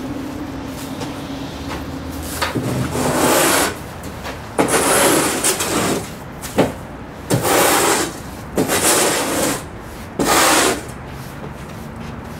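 A hand brush sweeping sand off a stage floor in about five scraping strokes, with a few short knocks between them.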